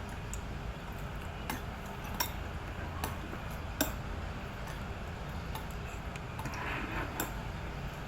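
Eating sounds: scattered light clicks and clinks of food and utensils against a plate, over a steady low hum.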